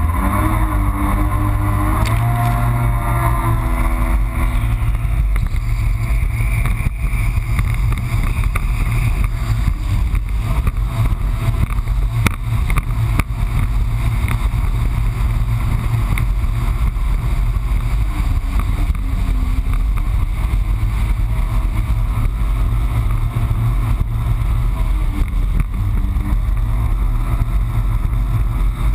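2008 Yamaha FX Cruiser HO jet ski's four-stroke engine running loud under throttle. The revs rise over the first few seconds, then hold steady at speed.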